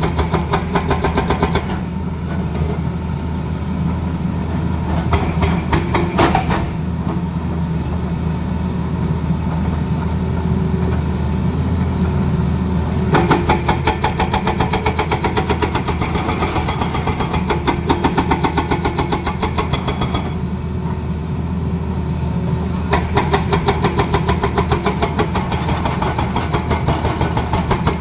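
Tata Hitachi tracked excavator's diesel engine running steadily under load while the arm works against rock, with spells of rapid rattling knocks that come and go several times.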